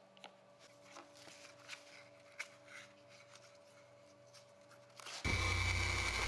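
Faint scratching and small handling noises of a pencil marking a wooden blank and masking tape being wrapped on it. About five seconds in, a bandsaw comes in suddenly: a steady hum with a high whine as the taped cocobolo blank is fed to the blade.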